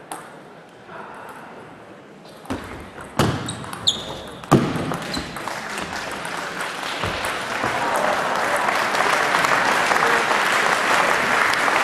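Table tennis ball clicking off paddles and table, with a couple of louder knocks about three and four and a half seconds in. Then audience applause starts and builds into steady clapping.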